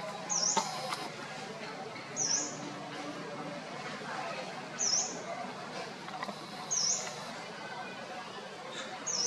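A small animal's high-pitched chirp, repeated five times at about two-second intervals, each call a quick dip and rise in pitch.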